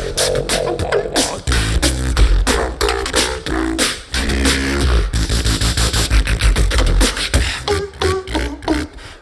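Solo beatboxer performing an original drum and bass routine with the mouth alone: fast kick, snare and hi-hat clicks over a deep sung bass line, with pitched vocal tones, and a brief dip in the beat near the end.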